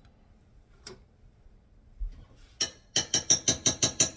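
A spoon mixing sour cream and paprika sauce in a small bowl: a single clink, a soft knock, then about a second and a half of quick clinks of the spoon against the bowl, about eight a second.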